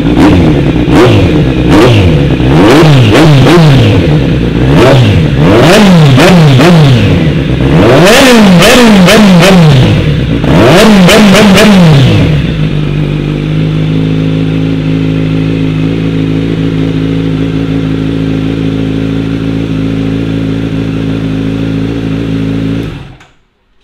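Kawasaki Z900 inline-four engine breathing through a de-catted JP Racing slip-on exhaust, revved in a quick series of about a dozen throttle blips. It then settles to a steady idle before the sound cuts off suddenly near the end.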